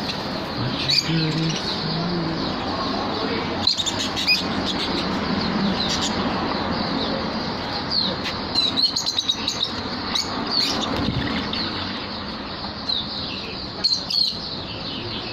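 A flock of budgerigars chattering: a dense, continuous run of short high chirps and warbles, with wings flapping now and then.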